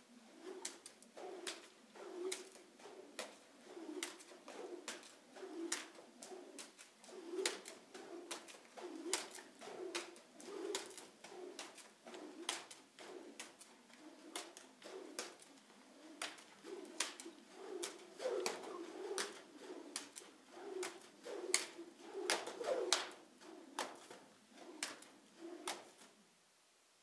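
A plastic bag or flag on a training stick rustling and crackling as it is shaken near a horse in a steady rhythm, about one swish a second with sharp crinkly clicks, stopping near the end.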